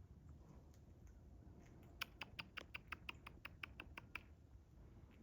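Squirrel gnawing at a nut shell: a quick, even run of about a dozen sharp clicks over two seconds, starting about two seconds in.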